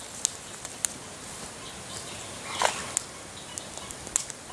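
Footsteps and rustling on grass and leaf litter as a person walks up and kneels down, with a few scattered sharp clicks.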